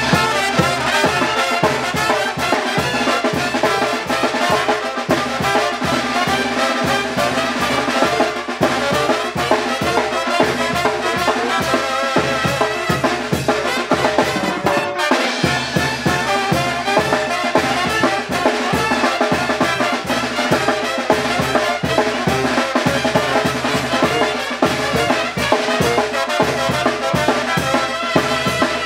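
Live Mexican brass band (banda de viento) playing: sousaphone and other wind instruments carry the tune while timbales, congas and a bass drum keep a steady beat, with a brief break about halfway through.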